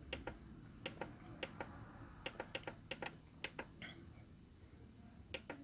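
Clicking of a Korg synthesizer's front-panel buttons, a dozen or so faint sharp clicks in quick irregular succession as the page and cursor buttons are pressed to step through a patch's edit parameters.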